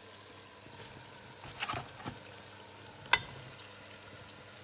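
Pork rib pieces sizzling as they start to fry in a pot of oil and butter with soffritto: a steady hiss, broken by a few short knocks, the sharpest about three seconds in.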